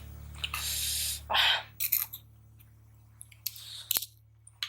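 Close-miked mukbang eating sounds: bites and chewing of tahu gejrot, fried tofu with green bird's-eye chilies in its sauce. There are several short noisy bursts and a sharp click about four seconds in.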